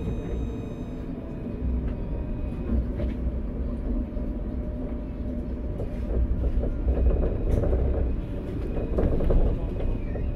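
Alstom Citadis 402 tram running along its track: a steady low rumble of wheels on rail with scattered clicks. It grows louder from about halfway through.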